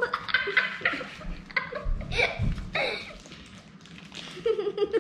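Children giggling and making short voice sounds while wet, sticky slime is squeezed and pulled apart in their hands, with a held laughing voice starting near the end.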